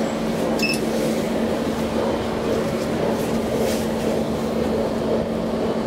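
SMW traction elevator car travelling in its shaft: a steady rumble with a constant low hum, and a brief high tone about half a second in.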